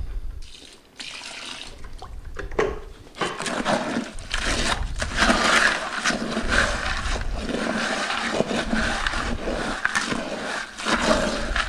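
Wet pre-mixed concrete being stirred by hand in a plastic 5-gallon pail with a small paddle: sloshing and scraping against the bucket's sides and bottom, a steady run of strokes from about three seconds in. The batch is on the runny side from extra water poured in near the start.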